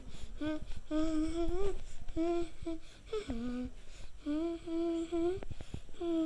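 A person humming a simple tune in a series of short held notes that step up and down in pitch, with a brief click about five seconds in.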